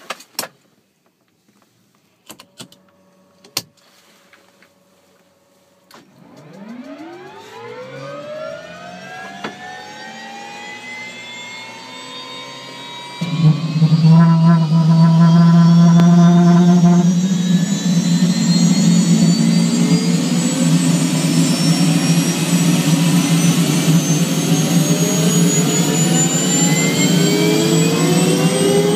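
Bell 206 JetRanger's Allison 250 turboshaft being started, heard from inside the cockpit. A few clicks and a steady tone come first. About six seconds in, the starter whine begins and rises steadily. Near the halfway point the sound jumps loud into a low drone with a brief pulsing beep, and the turbine whine keeps rising as the engine and rotor spool up.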